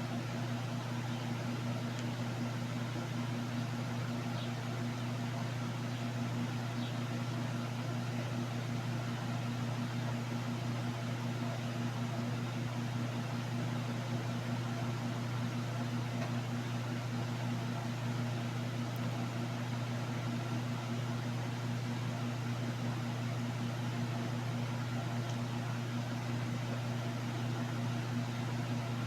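A steady low hum with a faint hiss, unchanging throughout, typical of a running fan or small appliance motor.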